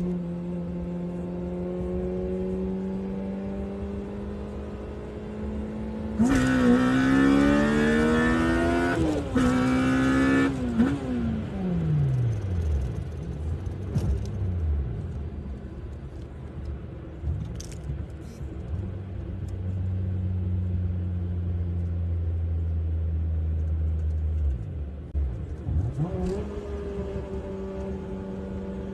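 Honda B20 VTEC four-cylinder engine with Skunk2 Tuner 2 camshafts running, then revved hard about six seconds in: the pitch climbs, dips for an instant and climbs again, then falls away as the throttle is released. Later it settles to a lower, steady note, and near the end the pitch rises again.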